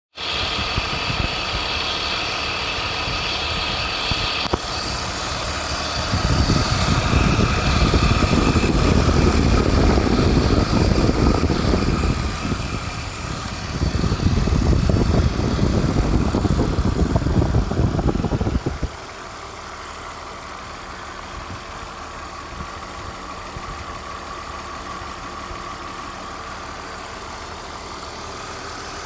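BMW E39's M54 straight-six petrol engine running. It grows louder and rougher about six seconds in, eases briefly around twelve seconds, then drops back to a quieter steady run at about nineteen seconds.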